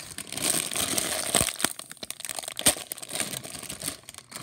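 A thin plastic bag of LEGO bricks crinkling as it is shaken and emptied, the small plastic pieces clattering out onto a pile of bricks, with two sharper clacks, the louder one past the middle.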